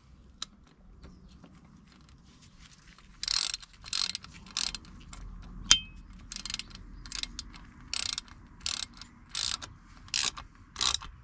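Ratchet socket wrench clicking in a run of short, even strokes, about one and a half a second, starting about three seconds in, as it tightens the top plug of an Evinrude E-TEC outboard's gearcase. A single sharp metallic clink sounds a little before the middle.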